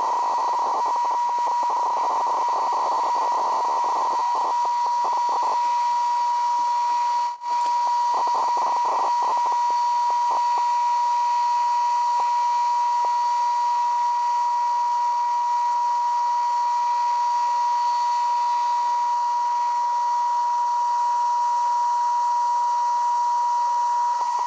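Smithy CB-1220XL metal lathe running a power-feed cut, heard as a steady high-pitched whine with hiss. Patches of crackle come from the cut at about four to six seconds and again around eight to ten seconds, and the sound drops out briefly in between.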